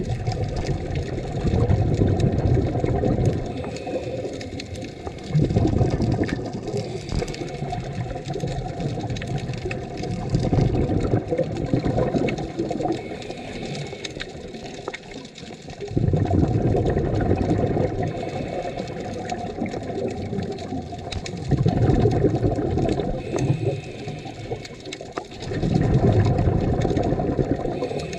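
Scuba divers' exhaled breath bubbling out of their regulators, heard underwater: muffled bubbling surges of two to four seconds, coming about every four to five seconds, with quieter pauses between breaths.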